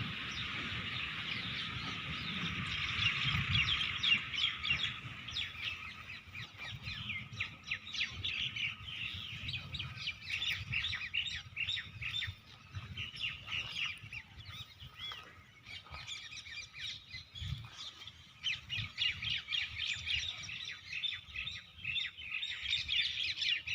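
Small birds chirping: a dense stream of short, high chirps, many overlapping, thinning out now and then before picking up again.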